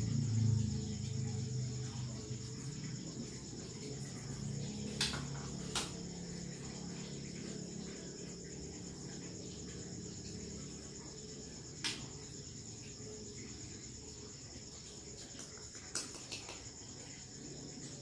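Crickets chirping steadily in a continuous high-pitched chorus, with a low rumble fading away over the first few seconds and a few short sharp clicks scattered through.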